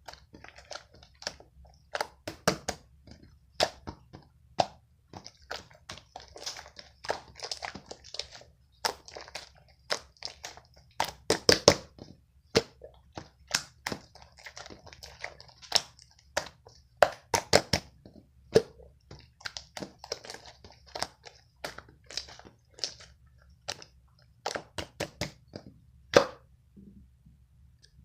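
Slime being played with by hand, making many irregular sharp clicking pops and crackles, several a second at times, over a faint sticky hiss.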